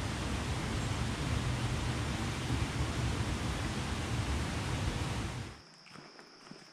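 Steady rush of the Little River's water at The Sinks, which cuts off suddenly about five and a half seconds in. Faint footsteps on a dirt trail follow.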